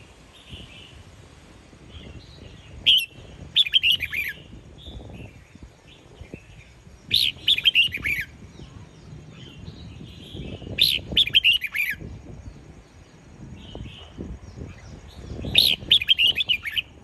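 Caged red-whiskered bulbul singing: four short phrases of quick whistled notes, each about a second long, coming roughly every four seconds.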